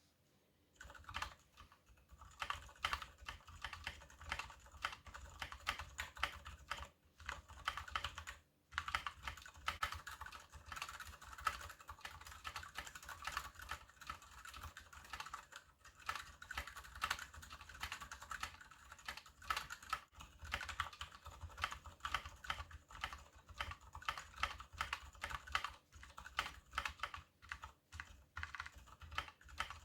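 Steady, fast typing on a KBD75 mechanical keyboard with Gateron Silent Brown switches in a brass plate and PBT DSA keycaps, the key presses coming in quick runs with a short pause about eight seconds in.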